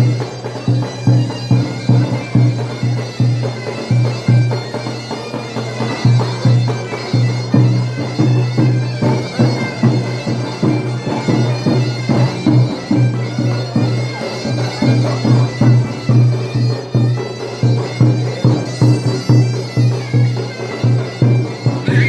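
Davul and zurna playing horon dance music: the zurna's loud, unbroken reedy melody over a steady davul beat.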